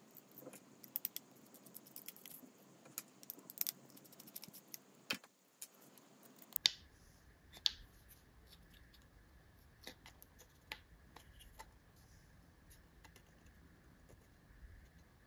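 Scattered small clicks and clinks of a precision screwdriver and tiny screws as a small camera housing is unscrewed and taken apart, with one sharper click about six and a half seconds in.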